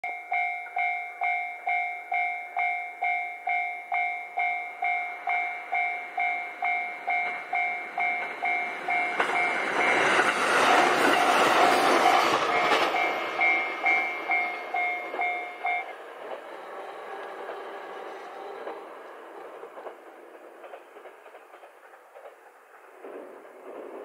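Level crossing warning bell ringing about twice a second as a two-car JR Hokkaido H100 (DECMO) diesel-electric railcar train passes, loudest about ten to thirteen seconds in. The bell stops about sixteen seconds in and the train's rumble fades away.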